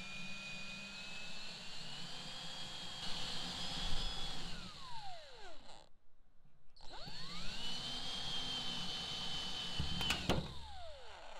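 Cordless drill boring plug-weld holes through a steel floor-panel flange. The motor whine climbs and holds, winds down and stops about five seconds in, then spins up again and winds down near the end, with a few sharp clicks just before it stops.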